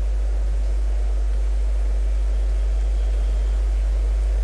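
Steady low electrical hum, the kind of mains hum picked up through a sound system or broadcast feed, under a faint hiss of background noise.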